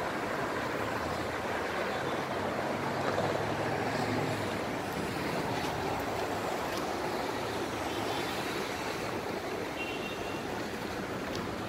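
Road traffic: cars and a van passing on a city street, a steady rush of engine and tyre noise, with a vehicle's engine hum swelling about one to four seconds in.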